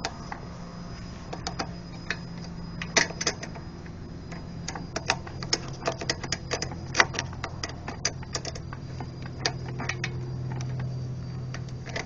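Irregular metal clicks and clinks of wrench work undoing bolts on a single-cylinder engine, over a steady low hum.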